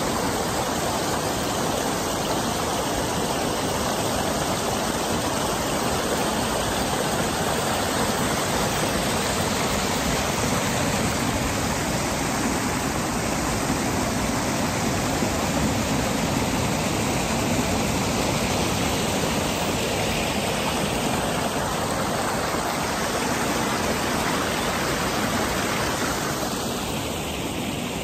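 Steady rush of a flowing stream's water.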